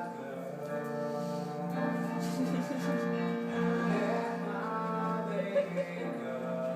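Background music with sustained sung or choral notes.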